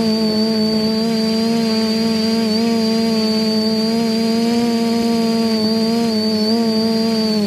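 Quadcopter's electric motors and propellers whining steadily in a hover, a stack of sustained tones that waver slightly in pitch.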